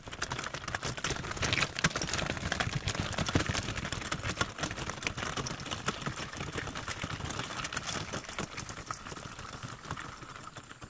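Wheels of a folding camping wagon rolling over loose stones and gravel, with footsteps on the stones: a dense, irregular crunching and clattering that fades near the end as the wagon moves away.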